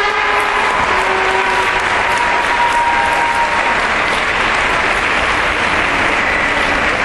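Audience applauding steadily at the end of a gymnastics routine.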